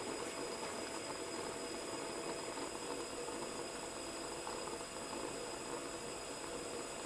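Steady room tone: an even background hiss with a faint constant hum, and no distinct sounds.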